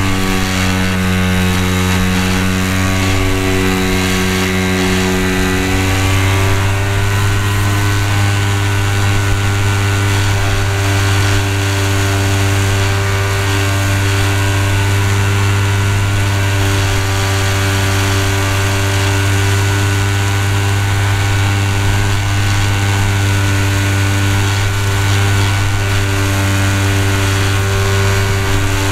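HobbyKing Tiger Moth RC model biplane's motor and propeller running steadily in flight, heard close up from a camera mounted on the plane. A steady drone whose pitch rises slightly about six seconds in, then holds.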